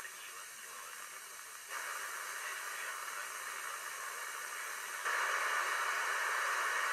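Radio receiver static: steady hiss from a receiver tuned to the 2-metre amateur band with no station talking. It steps louder about a second and a half in, and again about five seconds in.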